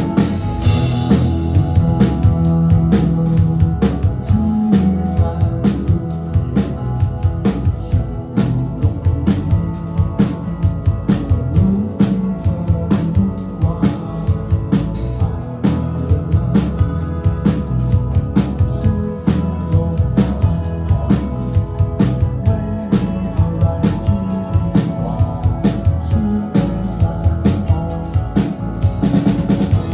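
Live indie rock band playing: two electric guitars, electric bass and a drum kit keeping a steady beat, with a cymbal crash at the start.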